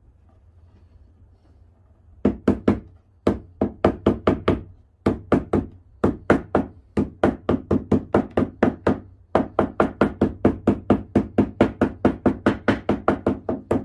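Rubber mallet knocking push-on T-section edge trim into the edge of a furniture-board cabinet panel. About two seconds in, sharp knocks start in short bursts, and after about nine seconds they settle into a fast, steady run of roughly four or five knocks a second.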